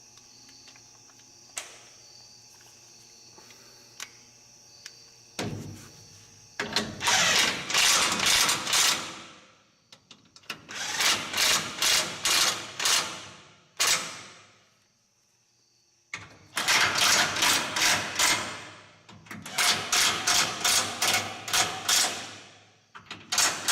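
Cordless impact wrench tightening bolts. It fires in about five bursts of rapid hammering, each lasting two to three seconds, starting about five seconds in.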